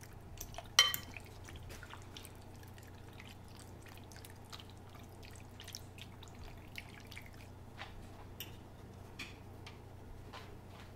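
Chopped chicken being mixed with vinegar in a bowl: a knock about a second in, then sparse faint wet clicks and taps, over a low steady hum.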